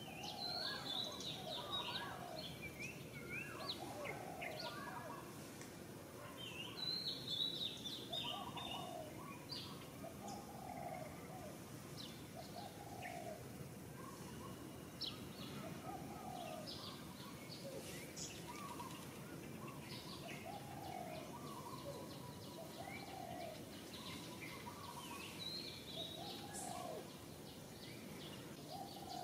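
Birdsong outdoors: several birds chirping and twittering, with one bird repeating a short low call every two to three seconds, over a steady background hiss. The high chirping is busiest about a second in and again around seven to eight seconds in.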